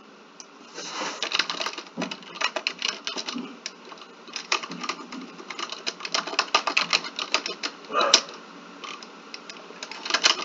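Rapid typing on a computer keyboard: quick runs of key clicks, with a short pause about four seconds in.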